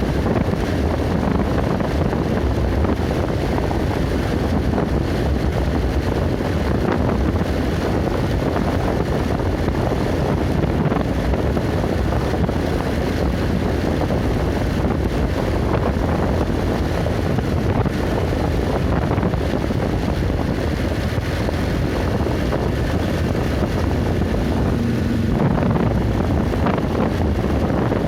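Steady wind noise buffeting the microphone over the low, even rumble of a vehicle driving along a road.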